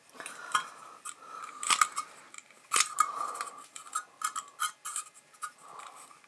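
Irregular small metallic clicks and light scraping as a 50 mm lens is worked by hand into the metal lens-mount plate of an AKS-1r cine camera, the Soviet copy of the Bell & Howell Eyemo. The sharpest clicks come about two seconds and three seconds in.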